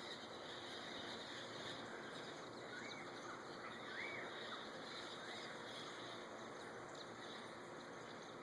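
Faint tropical morning ambience: a steady insect drone with a few short bird chirps about three and four seconds in.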